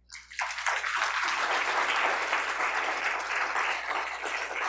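Audience applauding, swelling up within the first half second and then continuing steadily.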